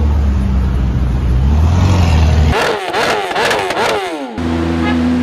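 A supercar engine running with a steady low rumble. About halfway through there is a sudden cut to a superbike engine revved up and down in quick blips, four or five times. Near the end another cut brings in an engine running at a steady pitch.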